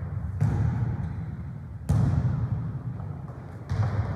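A football being kicked and bouncing on a gym floor during a football tennis rally: three sharp thuds about a second and a half apart, each echoing in a large hall.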